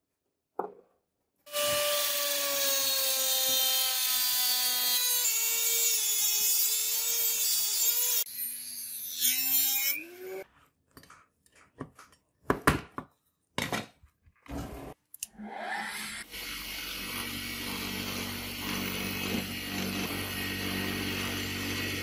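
Workshop power tools working metal. A steady machine whine slowly falls in pitch for several seconds. It gives way to a string of short knocks and scrapes midway, then another machine runs steadily with a low hum.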